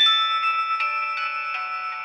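Nokia 1209 mobile phone playing a ringtone preview through its small built-in speaker: a bell-like synthesized melody of two or three notes a second, thin and without bass.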